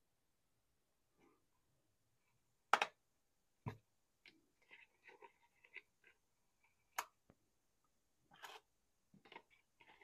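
Faint, scattered handling sounds with a few sharp clicks: small metal oil-pump valve parts tapping against a plastic cup as they are dipped in oil.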